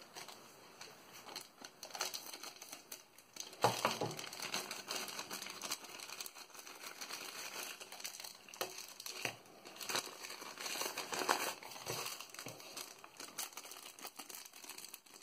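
Plastic mailer envelope and a clear plastic product bag crinkling and rustling in the hands as the package is opened and its contents slid out, in irregular crackles with a few louder bursts.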